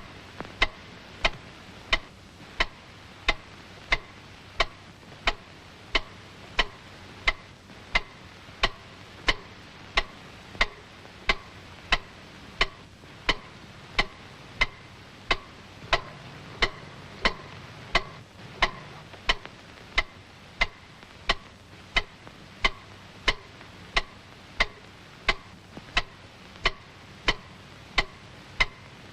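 Cartoon sound effect of a cuckoo clock ticking loudly: sharp, evenly spaced ticks at about one and a half a second, keeping a steady beat.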